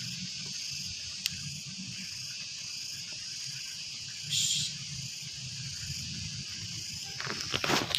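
Steady, high-pitched chorus of insects, with a single sharp click about a second in and a short hiss about halfway through.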